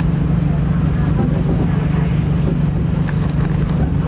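Running noise of a diesel train heard from inside the carriage: a steady low hum under a constant rushing noise.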